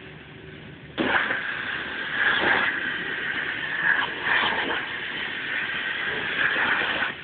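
CNC machine cutting a part: a loud, hissing cutting noise starts suddenly about a second in, swells and dips several times, and cuts off abruptly near the end, over the machine's steady running hum.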